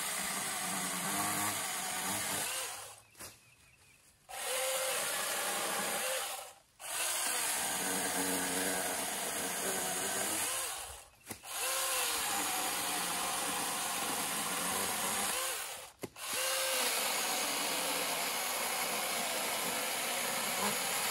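Battery-powered 6-inch brushless mini chainsaw running under load as it cuts through a hard oak limb. It runs in five long runs separated by brief pauses, the motor's pitch bending as each run starts.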